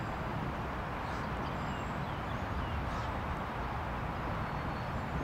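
Steady outdoor background rumble and hiss, with a few faint bird chirps about a second or two in.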